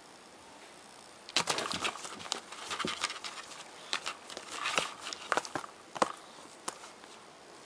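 A cat clawing and scrabbling at an interlocking foam floor mat, a quick flurry of scratches, taps and rustles that starts about a second and a half in and dies away near the end.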